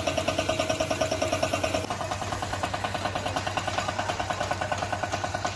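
Compressor of a paint-spraying rig running steadily with a rapid, even pulse, driving a hand spray gun on a hose.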